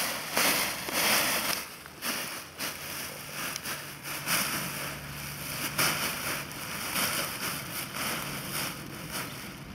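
Paraglider canopy cloth rustling and crinkling in uneven bursts as it is gathered and folded over by hand.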